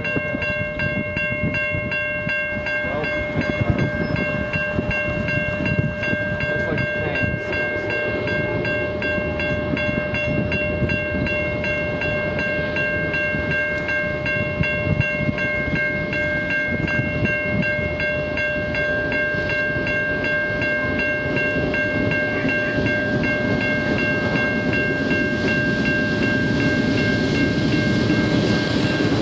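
Railroad grade-crossing warning bell ringing steadily as the crossing activates. An approaching diesel freight train's locomotives rumble louder near the end.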